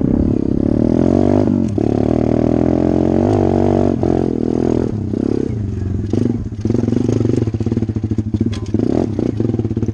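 SSR 125 pit bike's four-stroke single-cylinder engine running under throttle, heard close up, the revs dropping and picking up again several times as it is ridden up a dirt trail.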